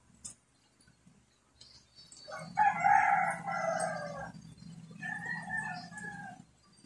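A rooster crowing twice: a loud crow about two seconds in, then a fainter, shorter one.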